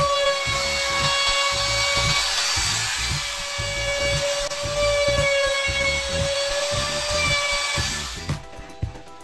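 Handheld trim router running at a steady high whine as it cuts the overhanging edge of a laminate sheet, over background music with a steady beat. The router sound fades out near the end.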